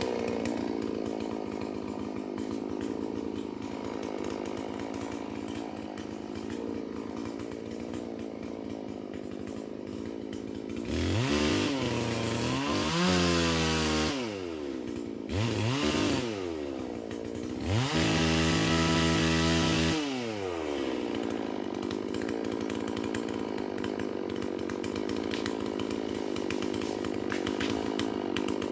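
Holzfforma G444 two-stroke chainsaw, a Stihl MS440 clone, idling steadily. About eleven seconds in it is revved up and let back down three times, the last rev held high for about two seconds, before it drops back to idle.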